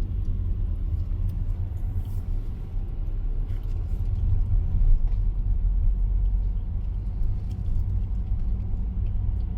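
Steady low rumble of a car driving, heard from inside the cabin: road and engine noise, with a few faint ticks.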